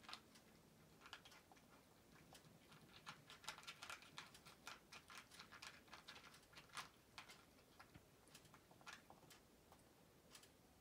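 A cat crunching dry kibble: faint, irregular clicky crunches, thickest in the middle and thinning out near the end.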